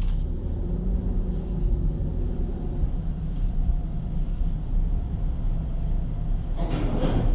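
Car moving slowly: a steady low rumble of engine and tyres, with faint steady tones above it and a brief louder noise near the end.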